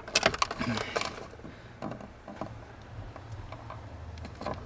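Scattered hard clicks and knocks of a part being handled and tried for fit in a truck's dash opening, busiest in the first second, over a low steady hum.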